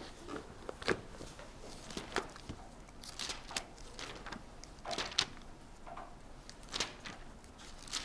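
Pages being turned, with soft rustles and light taps every second or so.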